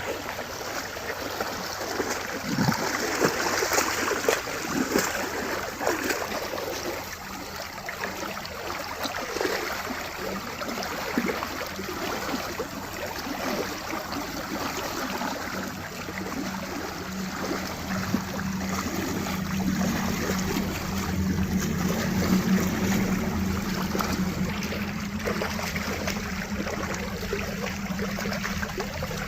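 Cattle wading across a shallow river, with water splashing and sloshing around their legs over running water. About two-thirds of the way in, a steady low hum comes in and holds to the end.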